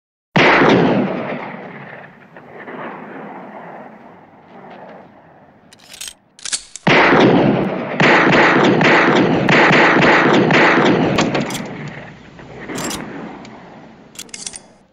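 Bren 10 pistol gunshot sound effect in rapid fire, the shots ringing with a long echoing tail. It starts with a burst about half a second in that dies away over several seconds. About seven seconds in, a longer string of rapid shots follows, runs for about five seconds and trails off.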